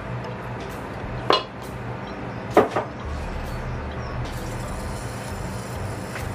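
Utensils and dishes clinking while food is served onto plates: one sharp clink a little over a second in, then two quick clinks close together about two and a half seconds in, the first of these the loudest. A steady low hum runs underneath.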